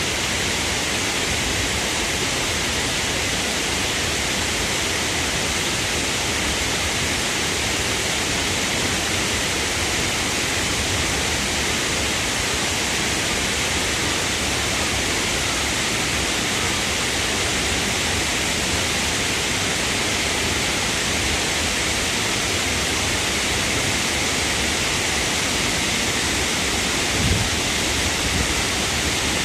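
Shiraito Falls, a broad curtain of spring-fed waterfalls, pouring with a steady, unbroken rush of falling water. A brief low bump comes near the end.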